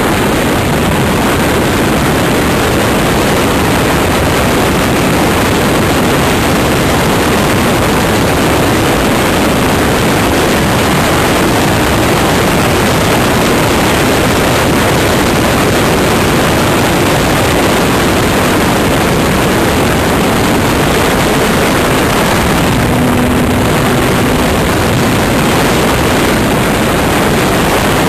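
Steady loud rush of air over a camera riding on a model motor glider's wing in flight: an even roar of wind noise on the microphone, with a faint brief tone about 23 seconds in.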